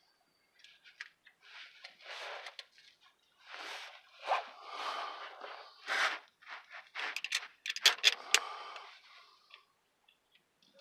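Irregular scraping, rustling and crunching with a run of sharp clicks around seven to eight seconds in: hands working a clamp and wrap tape onto a car's tailpipe for an exhaust-leak patch.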